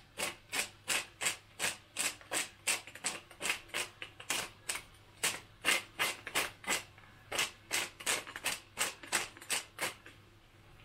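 Wooden pepper mill being twisted, its grinder crunching peppercorns in a steady run of short scratchy clicks, about three a second, stopping shortly before the end.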